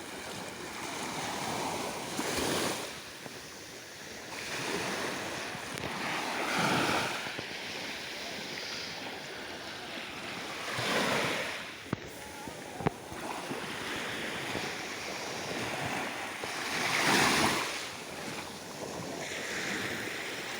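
Small waves on a calm Mediterranean sea washing onto the shore, four washes that swell and fade over the steady hiss of the water. Two brief clicks sound about two-thirds of the way through.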